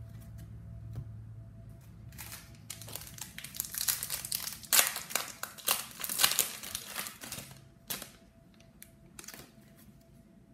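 A trading-card pack's wrapper being torn open and crinkled by hand: a run of crackling and tearing for about five seconds, loudest in the middle, then a few soft rustles of cards being handled.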